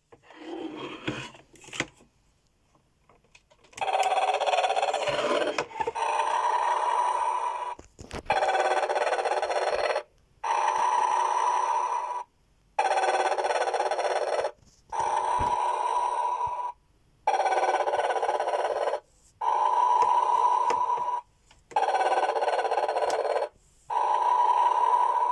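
Snoring Santa decoration playing its snore through a small built-in speaker: buzzy, noisy snores about two seconds long with short pauses between them, repeating evenly from about four seconds in. A few small handling knocks come before it.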